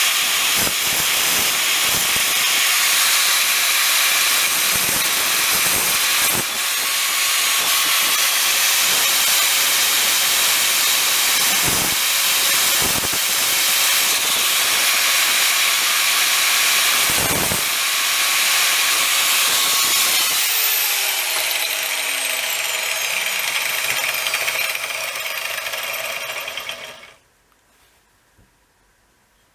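Grinder running and grinding a drill bit into a spot-weld cutter. About twenty seconds in it is switched off and spins down, its pitch falling over several seconds until it stops.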